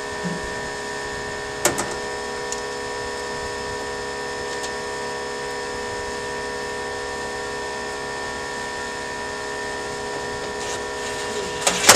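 Steady machinery hum made of several fixed tones. A sharp click comes about a second and a half in, and a quick cluster of clicks and knocks near the end, like a cover being handled and snapped into place.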